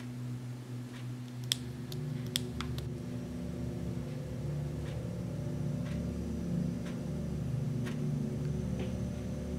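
Wall clock ticking about once a second over a low steady drone that swells about a second in. A few quicker, irregular clicks come near the start.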